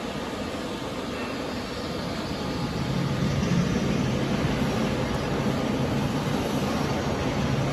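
Industrial robot arm's servo motors running as the arm moves through its program, a steady mechanical whir with a low hum that grows louder about two and a half seconds in.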